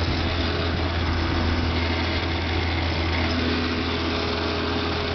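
Two-stroke 5 hp Mercury outboard motor running steadily under way, a constant low drone with no change in throttle.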